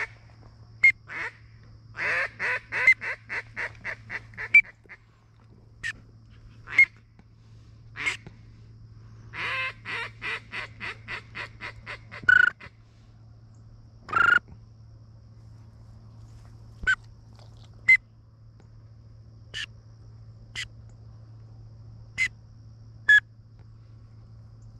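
Duck calling: two quick runs of quacks, each about two and a half seconds long, with single sharp calls scattered between and after them.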